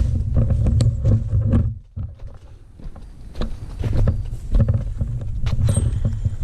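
Irregular knocking and rubbing with a heavy low rumble on a helmet-mounted GoPro during tree climbing, easing for about a second near the middle. The uploader suspects something on the helmet is making the noise.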